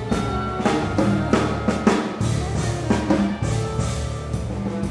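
A live contemporary ensemble playing, with irregular drum-kit hits over sustained low bass notes and a dense layer of pitched instruments.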